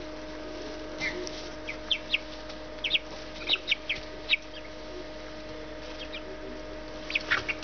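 Three-week-old Cornish Cross chicks peeping: short, high, falling peeps, several in quick succession in the first half and another cluster near the end. A steady low hum runs underneath.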